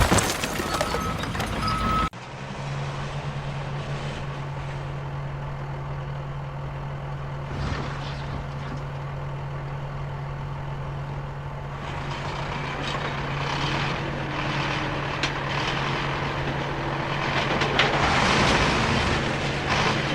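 A loud rushing noise for about two seconds that cuts off abruptly, then a heavy vehicle's engine running steadily with a low hum, with rougher noise building over it near the end.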